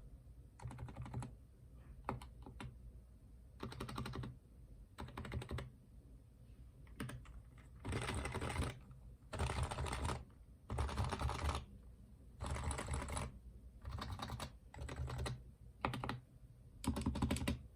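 Typing on an HHKB Professional Hybrid Type-S keyboard with silenced Topre switches: runs of rapid keystrokes in bursts, separated by short pauses, with the busiest, loudest runs from about halfway through and again near the end.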